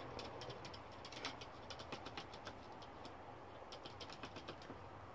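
Small dog pawing at a glass door pane: faint, irregular clicks and taps of claws on the glass, several a second.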